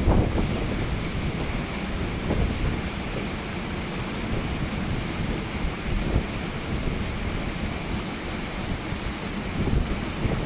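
Waterfall rushing steadily, with wind buffeting the microphone in gusts.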